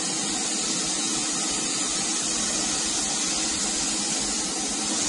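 SATA minijet 4400 B RP spray gun with a 1.2 nozzle hissing steadily as compressed air atomises and sprays a coat of clear lacquer.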